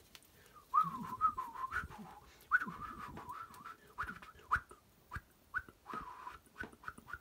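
A person whistling an imitation of birdsong: a run of warbling, wavering whistles and short chirps that starts just under a second in, with faint clicks of handling among them.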